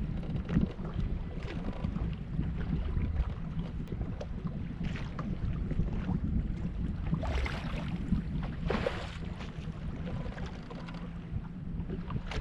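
Steady low rumble of wind on the microphone, with two short, louder sounds about seven and nine seconds in.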